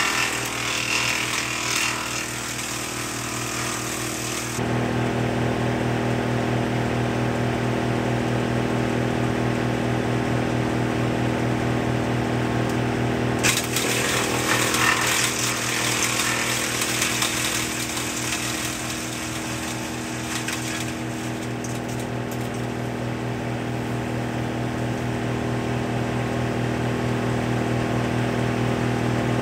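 Woodmaxx MX-8800 wood chipper, driven by a John Deere 2032R's 32 hp diesel, running steadily with an even machine hum. Branches are chipped in a noisy rush during the first four seconds and again at about 14 to 16 seconds, with a shorter burst around 21 seconds; in between the chipper runs empty.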